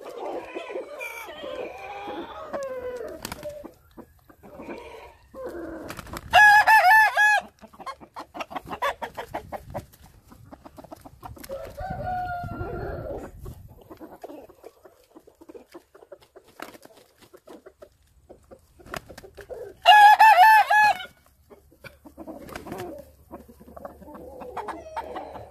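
Chickens clucking, with a rooster crowing loudly twice, about six seconds in and again about twenty seconds in.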